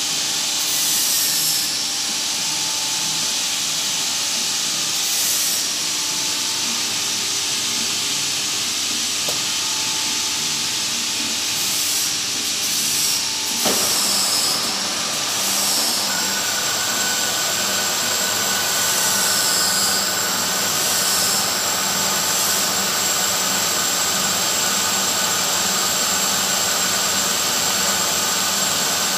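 Lathe spinning a Jaguar XK140 crankshaft while 160-grit abrasive is held against a journal on a first polishing pass, a steady hiss over the lathe's running. About 14 seconds in there is a sudden knock, after which a steady whine joins the hiss.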